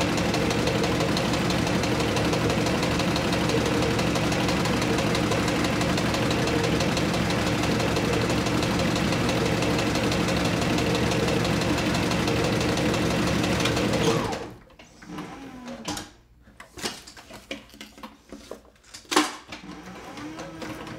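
Sewing machine running steadily as it stitches leather, with a fast even stitching rhythm over a motor hum, then stopping suddenly about two thirds of the way through. A few faint clicks and handling taps follow.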